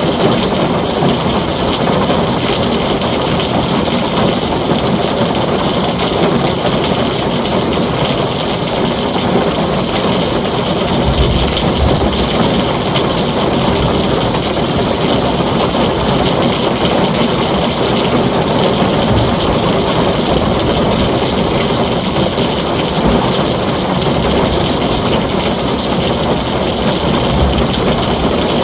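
Heavy rain falling steadily on a tin roof, a dense even hiss and patter, with brief low rumbles of thunder about eleven seconds in and again near the end.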